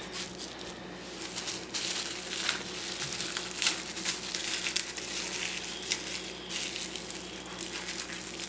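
Plastic bubble wrap crinkling and crackling irregularly as it is handled and peeled off a yo-yo.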